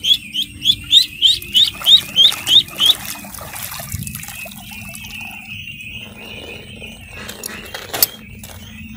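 A duckling peeping loudly, about three rising peeps a second for the first three seconds, over the continuous peeping of a flock of young ducklings. A sharp click comes near the end.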